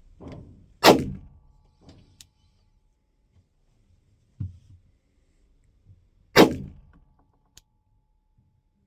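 Two single pistol shots from a 9mm Glock 45, about five and a half seconds apart, each a sharp crack with a short decaying tail, with a fainter thump between them.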